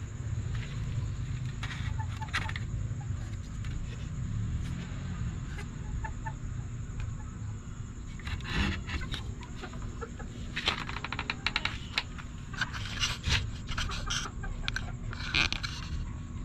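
Chickens clucking in a coop over a low steady rumble, with bursts of rustling and scraping about halfway through and again near the end.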